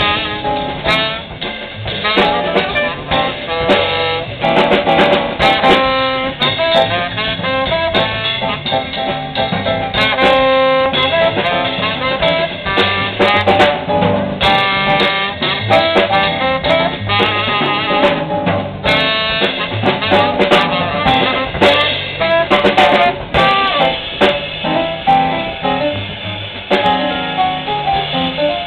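Live small jazz band playing a swing tune: tenor saxophone carrying the melody over piano, upright bass and drum kit.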